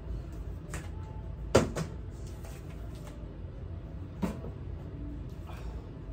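A few sharp clunks of a stainless steel mixing bowl being handled and set down on a kitchen counter. The loudest comes about one and a half seconds in, with a softer one just before it and another about four seconds in.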